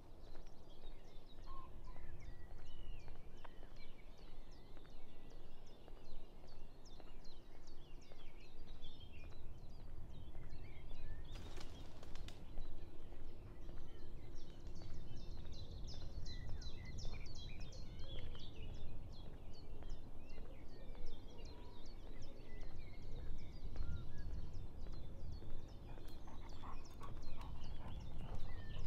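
Several birds singing and chirping, many overlapping calls, over a steady low rumble, with a short burst of noise about eleven seconds in.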